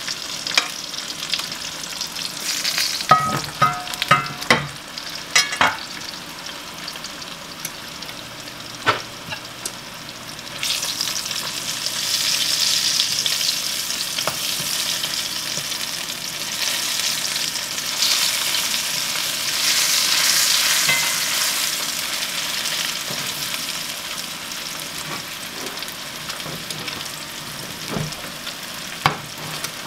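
Fat back frying in cast-iron skillets: a steady sizzle that grows louder about ten seconds in. A few seconds in, a fork clinks against the cast iron several times as the pieces are turned.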